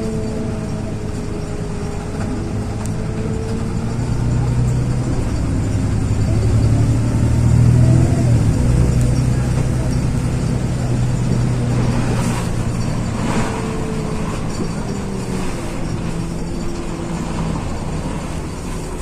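LiAZ 6213 articulated diesel city bus under way, heard from inside the cabin: a steady engine drone with a whining tone over it. The drone swells about six to eight seconds in, then eases off, with a couple of short hissing bursts a little past the middle.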